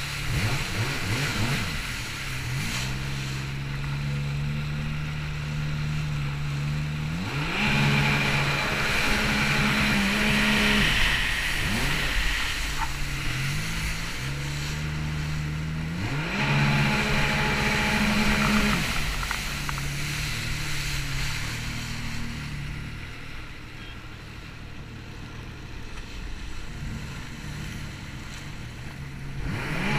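Watercraft engine running on the water, its pitch rising several times as it speeds up and then settling, with a hissing rush over the faster stretches. It grows quieter for the last several seconds.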